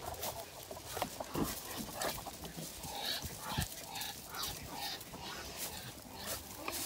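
Chickens clucking softly in short, scattered calls, with rustling and small clicks in straw bedding.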